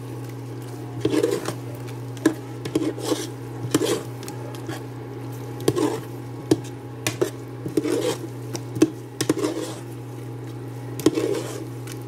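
A metal spoon stirring a thick spaghetti sauce in a pot, with irregular scrapes and clinks against the pot's sides, over a steady low hum.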